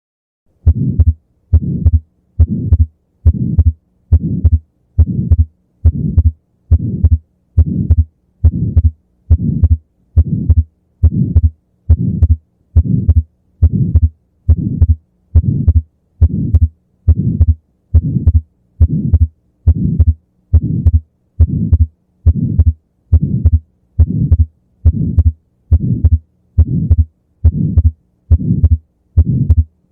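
Heart sounds heard through a stethoscope in atrial septal defect: each beat carries a systolic ejection flow murmur and a widely, fixedly split second heart sound (S2). The beats start just under a second in and repeat regularly at about 70 a minute.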